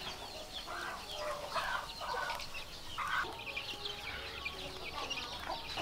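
Hen clucking a few times while her chicks peep continually with many short, high cheeps.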